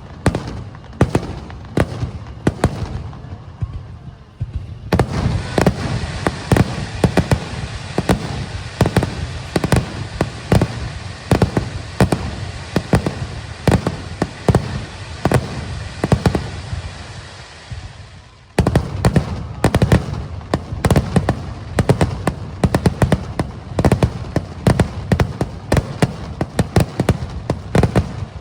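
Aerial fireworks bursting in rapid succession: sharp booms over a dense crackle that builds about five seconds in, dips briefly near the two-thirds mark, then resumes with more rapid bursts.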